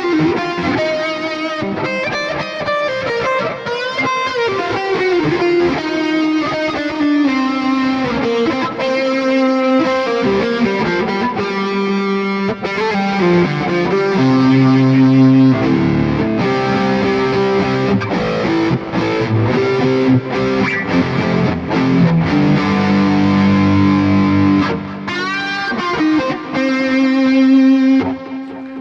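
Electric guitar played through a Neural DSP Mesa Boogie Mark IIC+ amp-modeler plugin on a distorted lead tone with delay: a long lead passage of sustained notes, bends and quicker runs.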